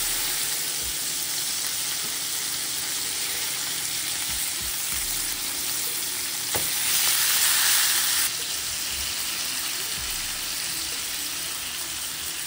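Food frying in butter in a pan on the stove: a steady sizzle that swells louder for a second or two past the middle, just after a light knock.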